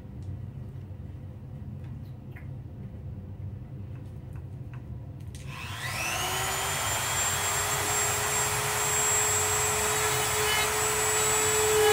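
A few faint clicks, then a handheld rotary tool spins up about five seconds in, its whine rising in pitch and settling to a steady run as it cuts into a model helicopter fuselage.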